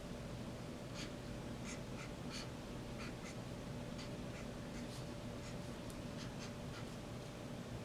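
Faint, irregular scratchy strokes of writing, a stroke every few tenths of a second, over a steady low hum.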